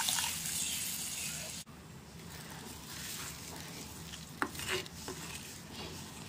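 Curry gravy sizzling and bubbling in the pot just after water is added; the hiss cuts off suddenly about a second and a half in. Then a wooden spatula stirs the thin gravy in a clay pot, with a couple of light knocks against the pot.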